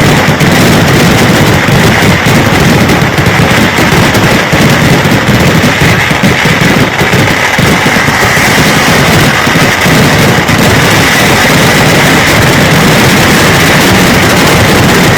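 Kerala pooram fireworks (vedikkettu) in a rapid, continuous barrage of firecrackers, very loud, the bangs so close together that they merge into one dense, unbroken crackle.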